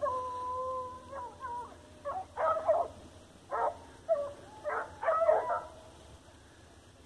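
Hunting dog baying: one long drawn-out howl held for about a second, then a string of short barks and yelps.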